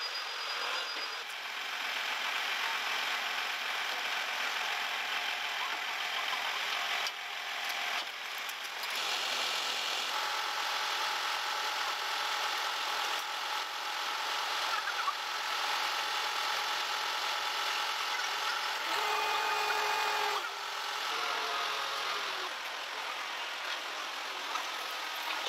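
Heavy machinery engines running steadily, with a faint whine in the noise; the sound changes abruptly several times between shots.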